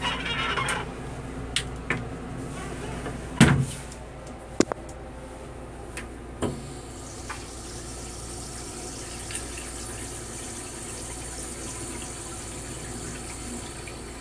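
Stainless-steel toilet on a Metro-North M3 railcar flushing: a brief hiss of water, a few clunks (the loudest about three and a half seconds in), then a steady hiss from about six seconds on as blue flush fluid fills the bowl.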